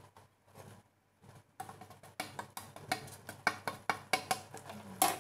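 A quick series of sharp taps of a plate and wooden spatula knocking on a frying pan as spice is tipped in. A few soft taps come first; about a second and a half in they turn rapid, roughly three a second, and the loudest comes near the end.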